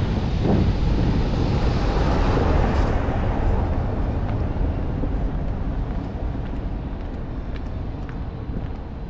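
A road vehicle passing close by: its noise swells over the first couple of seconds and then fades away gradually.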